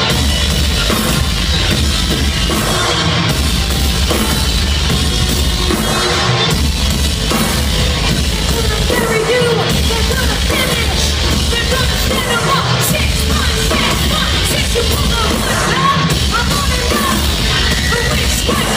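Loud live rock band playing with a heavy, distorted low end and a singer's yelled vocals over it, from a concert audience recording.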